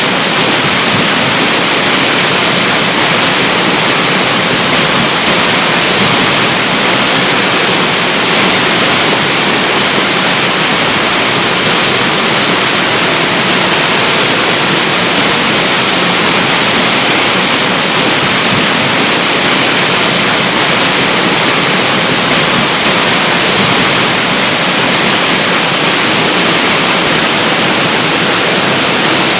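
The Yongmasan artificial waterfall, a large man-made waterfall, with its water falling in a loud, steady rush that does not change.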